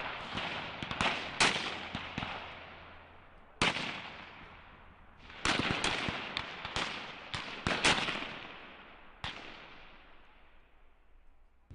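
Several rifles firing on an open range, single shots at irregular intervals from more than one shooter, each shot echoing away. A rapid cluster of shots comes in the first two seconds and another from about five and a half to eight seconds, with lone shots between.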